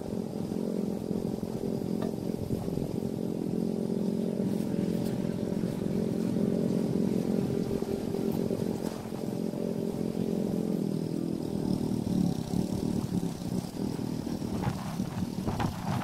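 An engine running steadily at an even speed, easing off near the end.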